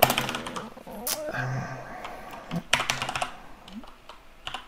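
Computer keyboard typing: several short bursts of keystrokes with pauses between them.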